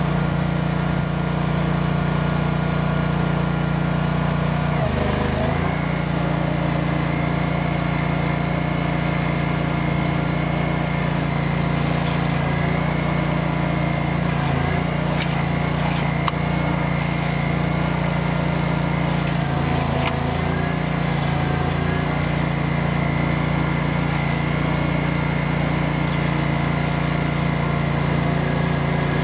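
Barreto 30SG hydraulic stump grinder running at full throttle while its cutter wheel grinds into a large stump. The engine note holds steady, dipping briefly in pitch and recovering about five seconds in.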